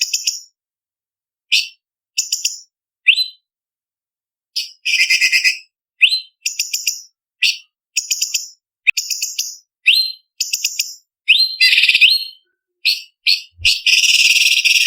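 Orange-bellied leafbird (cucak cungkok) singing: a string of short, rapid chattering phrases and quick rising whistles with brief pauses between them, running into a long unbroken trill near the end.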